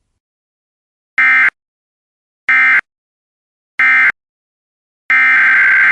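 Emergency Alert System SAME data bursts: three short end-of-message bursts about a second and a half apart, closing the previous alert. About five seconds in, a longer burst begins: the digital header of the next alert.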